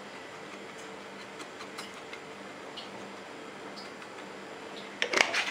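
A hand working spices into meat in an earthenware cooking pot, with only a few soft ticks over a faint steady hum. About five seconds in comes a short burst of sharp clatter, the loudest sound.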